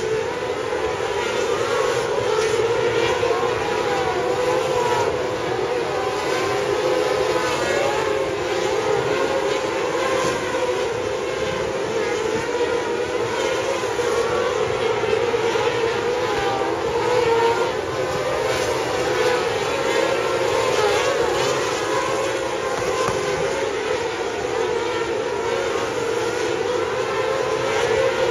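Pack of small winged sprint cars racing on a dirt oval, several high-revving engines wailing together. The pitch rises and falls as they accelerate down the straights and lift into the turns.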